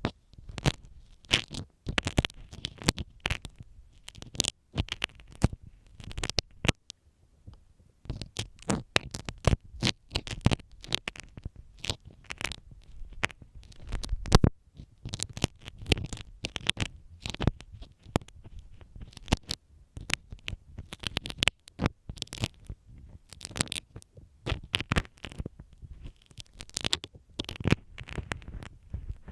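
Sewing pin scratching and scraping inside the ear canal of a binaural microphone: a dense, irregular run of sharp close-up scratches and clicks, with low rumbles where the pin rubs against the microphone.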